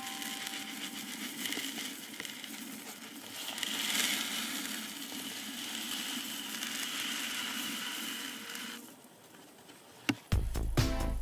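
Loose wooden matchsticks pouring out of a bucket into a hollowed-out watermelon: a dense, steady pattering rustle of small sticks that thins and stops after about nine seconds. A click follows, then music with a beat starts just before the end.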